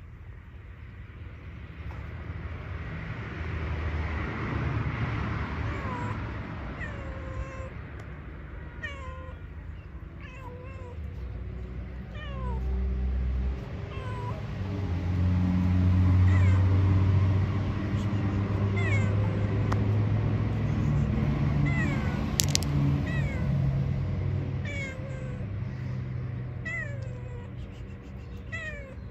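A tabby cat meowing and yowling, with low drawn-out calls that are loudest in the middle. Short high chirps come and go throughout.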